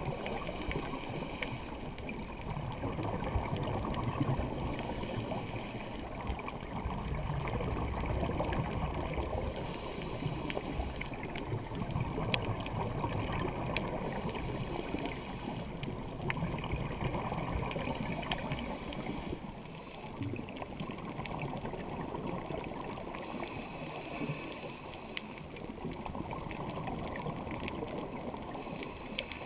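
Underwater noise through a dive camera's housing: a scuba diver's bubbles and water rush swelling and easing every few seconds, with scattered sharp clicks.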